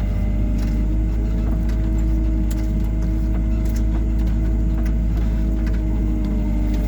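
Hyundai R140W-7 wheeled excavator's diesel engine running steadily while the machine drives over uneven ground, with scattered light clicks and rattles.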